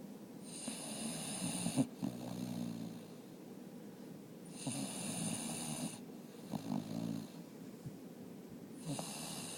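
Labrador retriever snoring: three breaths about four seconds apart, each with a low rattling snore and a high hissing sound.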